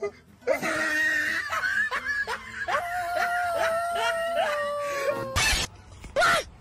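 A long, high, steady yell over music with a beat, followed by a sudden short noisy burst and a brief cry near the end.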